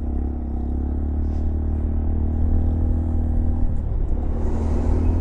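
Honda Monkey 125's single-cylinder 125 cc engine running steadily under way, heard from the bike with a low wind rumble. Its clutch is slipping.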